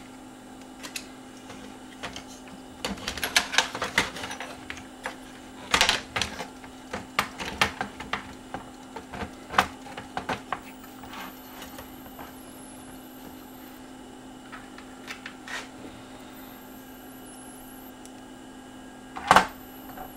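Plastic clicks, clacks and rattles as a CD player's disc-loader mechanism is handled and fitted back into the chassis by hand, with a loud clack near the end.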